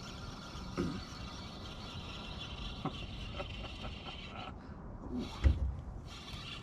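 Fishing reel being cranked to bring in a hooked bluegill: a steady whirring that stops about four and a half seconds in and starts again briefly near the end, with a single thump about five and a half seconds in.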